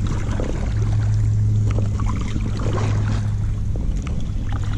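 A small motor running with a steady low hum, with light crackling and ticking of water and handling noise.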